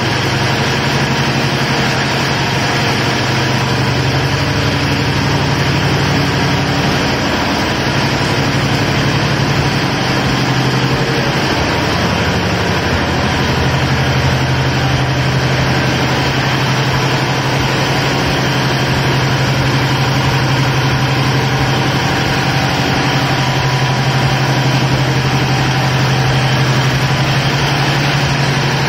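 Tugboat's marine diesel engines running steadily under way, a loud even drone with a strong low hum, heard inside the engine room.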